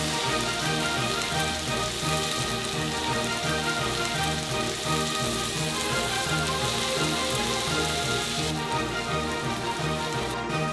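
Pork belly sizzling as it fries, a steady crackling hiss that stops about eight and a half seconds in, under rhythmic background music.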